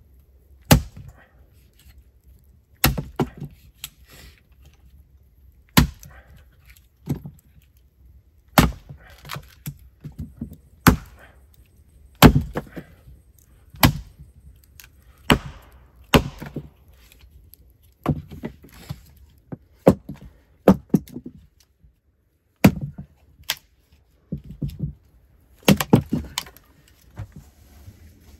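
An axe splitting firewood on a wooden chopping block: sharp single blows of steel into wood, about one every one to two seconds, some followed at once by a second knock as the split piece falls.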